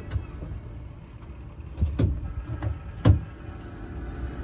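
Ride-on mini electric train running along its track: a steady low rumble with a few sharp knocks around the middle.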